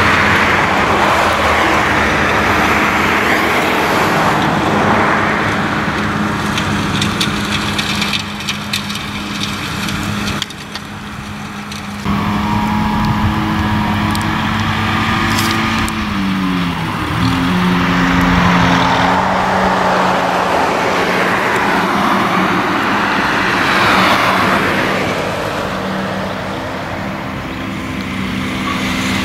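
Tractor engine running steadily under load while a rear-mounted mulching mower chops through tall grass, giving a constant rushing hiss over the engine. The engine pitch drops a little a bit past the middle and stays lower.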